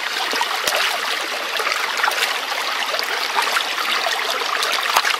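Shallow stream running over rocks, a steady rushing babble, with small splashes as hands rinse a mud-caked leather pistol holster in the current.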